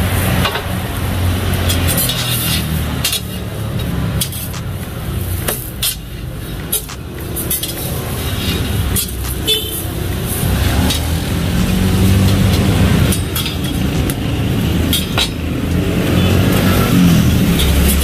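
Steady street traffic and engine rumble, with sharp clicks and scrapes of metal spatulas against a flat steel griddle.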